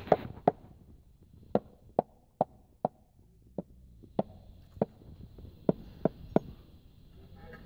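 A mallet tapping a white marble strip about a dozen times, in sharp, uneven knocks at one or two a second: the strip is being bedded down into the mortar as it is laid.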